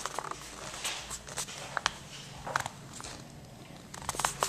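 Scattered light clicks and knocks from footsteps and camera handling, in a small tiled room.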